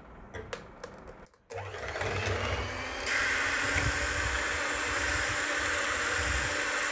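Electric hand mixer whipping cream: a few light handling clicks, then the motor starts about a second and a half in and runs steadily, stepping up to a louder, higher speed about three seconds in.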